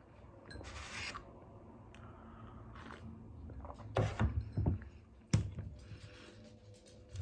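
Close-miked eating sounds from a vegan steak bake being eaten: a brief rustle about half a second in, then chewing, with a cluster of low knocks about four seconds in and a sharp click shortly after.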